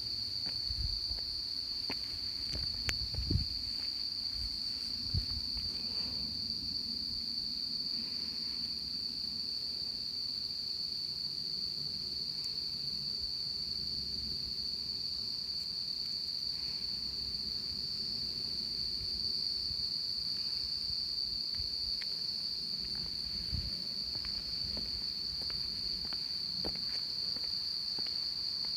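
Insects calling in a continuous, steady high-pitched drone, with a few soft thumps in the first several seconds.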